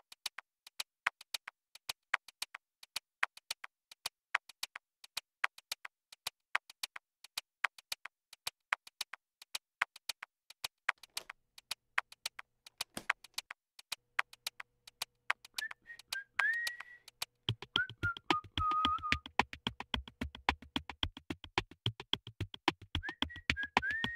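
Electronic background music: a fast, ticking drum-machine beat, joined about fifteen seconds in by a high gliding lead line and a couple of seconds later by a bass part.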